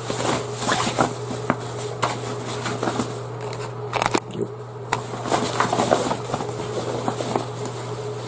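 Objects being handled: scattered clicks, taps and scraping, busiest about four to five seconds in, over a steady low hum.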